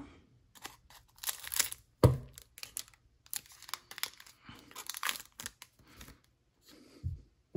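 Foil wrapper of a Pokémon trading-card booster pack crinkling and tearing in several short bursts as it is cut open and the cards are slid out, with a couple of dull thumps.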